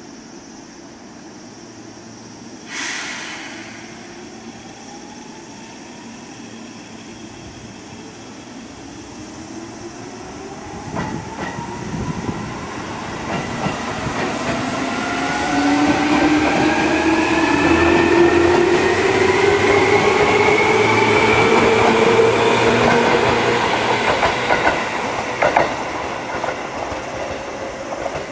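Seibu 2000 series electric commuter train pulling away: a short burst of air hiss about three seconds in, then the traction motors' whine rising steadily in pitch as the train accelerates, growing louder, with a few wheel clacks over rail joints.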